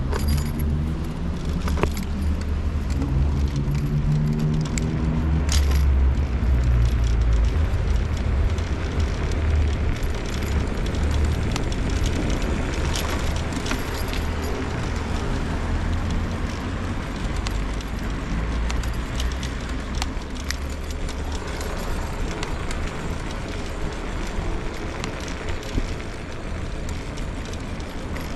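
Electric scooter ride along city streets: heavy wind and road rumble on the scooter-mounted microphone, with the scooter rattling over the pavement and traffic around it. A motor hum rises in pitch over the first five seconds.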